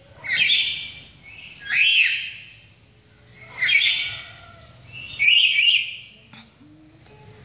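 A Papuan bird calling over and over: four loud, harsh calls about every one and a half to two seconds, each with a rising-and-falling note inside it, the last one doubled.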